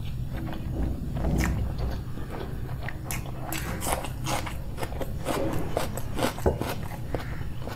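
Close-miked chewing of food, with a run of crisp crunching clicks from about three seconds in.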